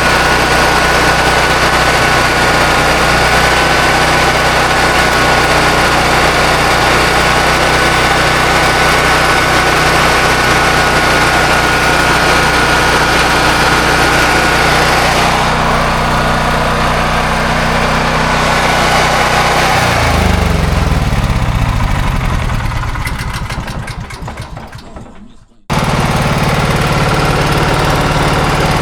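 Honda EB5000X gas generator's engine running steadily with a thin whine. About two-thirds in it is shut off, its pitch falling as it coasts down to a stop over about five seconds. A moment later the steady running sound cuts back in suddenly.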